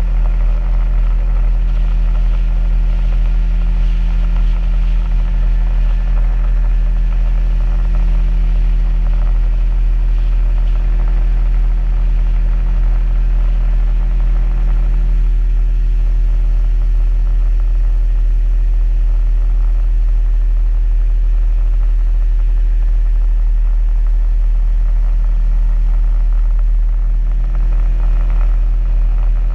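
A boat's outboard motor running steadily with the skiff under way: a constant low drone with a steady hum.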